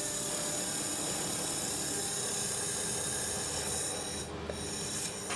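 Handheld laser welding machine running while welding 2 mm stainless steel: a steady hiss with thin high machine whines, which drops away about four seconds in.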